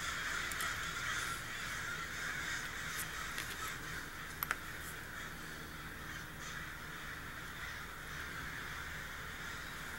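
Steady background hiss, with a few faint clicks of steel tweezers on a watch movement as its gear-train wheels are lifted out, and a sharper double click about four and a half seconds in.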